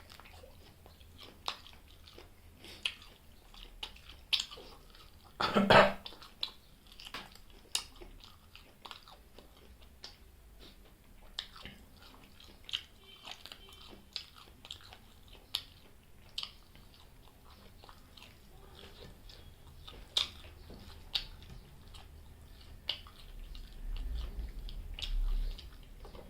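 Close-miked chewing and wet mouth clicks of a person eating chicken liver and gizzard curry with rice. A louder short rush of noise comes about six seconds in.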